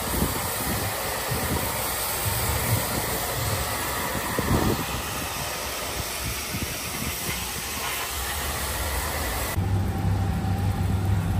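Steady, loud hiss of a high-pressure spray jet, with a few low knocks. About ten seconds in the hiss drops away and a steady low hum takes over.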